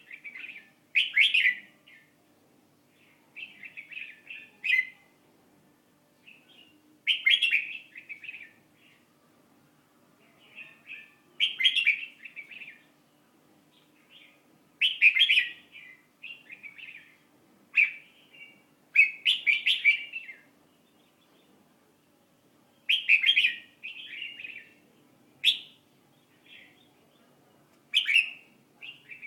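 A songbird singing short, quick chirping phrases, one every three to four seconds, with a faint steady hum underneath.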